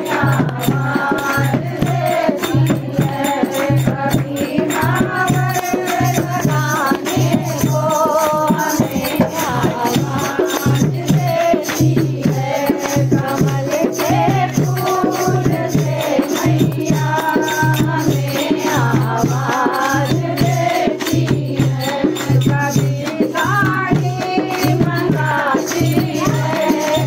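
Hindi devotional bhajan music: a gliding melody over a steady beat, with a low note pulsing about once a second and fast percussion strokes.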